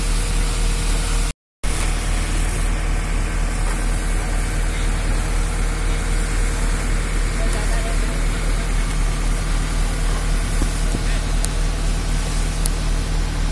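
Heavy diesel engine running steadily at idle, a low pulsing hum. The sound cuts out completely for a moment about a second and a half in.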